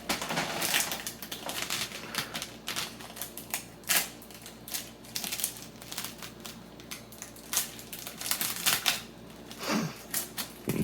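Irregular clicks and crinkles of a plastic cheese-slice wrapper being peeled and handled.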